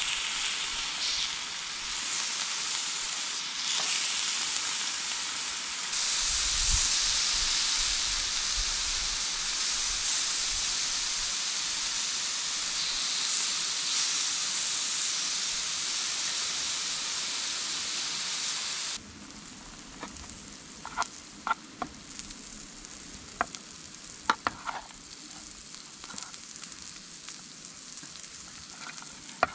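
Thin slices of beef sizzling steadily on a small black iron griddle plate over a tabletop grill. The sizzle cuts off abruptly about two-thirds of the way through, leaving a quieter stretch with scattered light clinks and taps of utensils.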